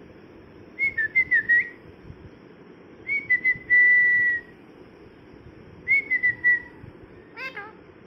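Indian ringneck parrot whistling: three short whistled phrases, each opening with quick chirps, the middle one ending in a long held steady note.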